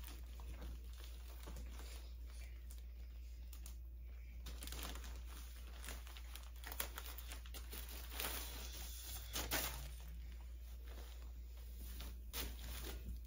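Plastic poly mailer bag crinkling and rustling in short, irregular bursts as it is handled and opened and a folded T-shirt is drawn out of it.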